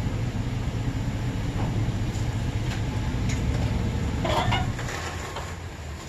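A vehicle engine running with a steady low rumble that eases off near the end, and a brief higher-pitched sound about four seconds in.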